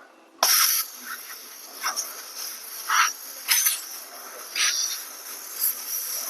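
Air rushing out of a motorcycle tire's valve stem with the Schrader valve core pulled, deflating the tire. The hiss starts suddenly about half a second in, and there are louder spurts every second or so.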